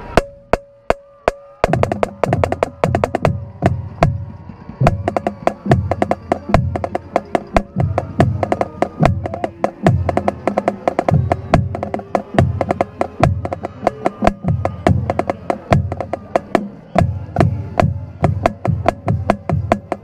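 Marching band drum line playing close up: a few sharp clicks, then from about two seconds in a fast, loud drum cadence of snare hits over low bass-drum beats that drop in pitch.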